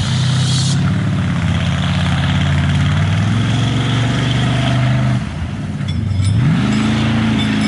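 A big off-road race vehicle's engine accelerating hard. It revs up at the start and runs at high revs for about five seconds, its pitch stepping around three seconds in. It drops off briefly, then revs up again near the end.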